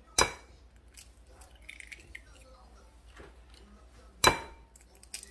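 Quail eggs being cracked against a glass measuring jug: two sharp clicks about four seconds apart, the second leaving a brief glassy ring, with faint small shell crackles between.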